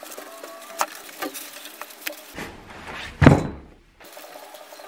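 Foam seat slab of a sofa bed being lowered onto its wooden slat frame: a few light knocks, then a rush of air that builds to a soft, heavy thud about three seconds in. The sound cuts off abruptly just after the thud.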